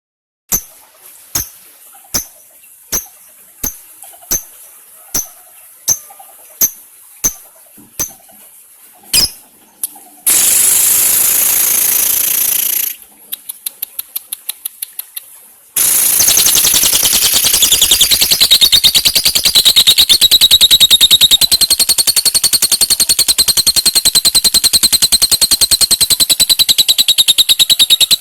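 Lovebird giving sharp single chirps about one a second, then a harsh burst and a run of quick clicks, then breaking into a long, rapid, unbroken high-pitched chatter (the 'ngekek panjang' of a lovebird's song) from about sixteen seconds in.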